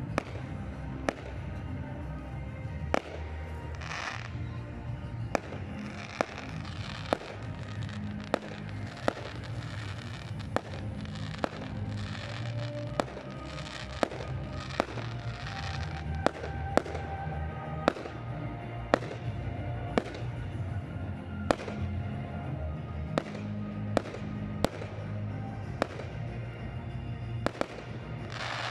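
Fireworks bursting in the sky, with sharp bangs about once a second, over music playing throughout.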